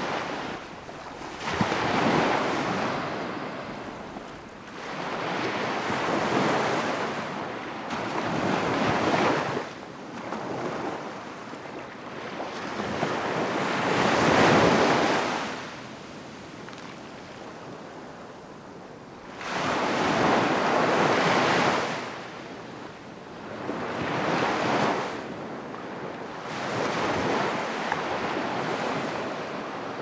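Surf washing up a beach, the sound of the waves swelling and fading in about seven surges a few seconds apart, the loudest about halfway through.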